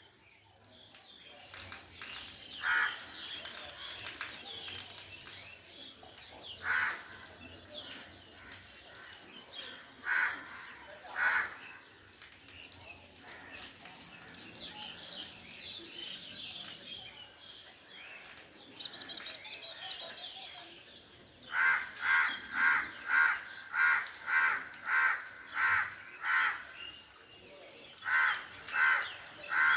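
Flock of tiny birds twittering and chirping continuously, with a louder bird giving short calls: a few single calls, then a run of about ten at roughly two a second, then three more near the end.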